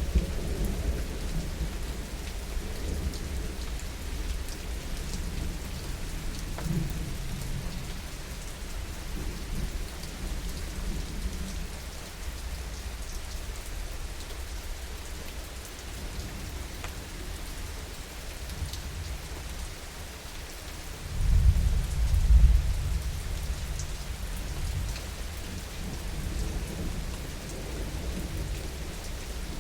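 Steady heavy rain with low thunder rumbling throughout. A louder rumble of thunder swells up about 21 seconds in and dies away again about two seconds later.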